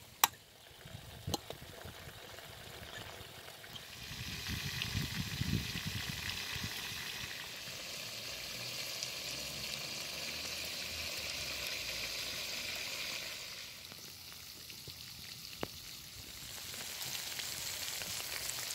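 Chicken, potatoes and vegetables sizzling in oil in a black iron saj pan over a fire. The sizzle swells about four seconds in, eases for a few seconds near the end, then builds again, with a few sharp taps.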